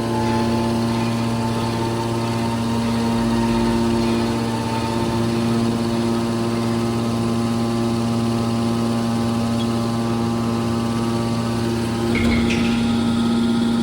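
Hydraulic scrap steel baler running with a steady machine hum, with a brief rougher noise near the end.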